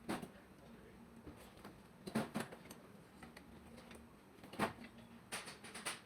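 Scattered clicks and knocks of hand tools and metal engine parts being handled: a couple about two seconds in, a sharper one past four seconds, and a quick run of small clicks near the end.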